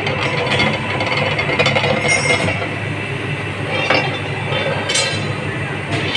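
Roof-bolt making machine running with a steady low hum, with sharp metallic clinks of steel bar and machine parts, the clearest about four and five seconds in.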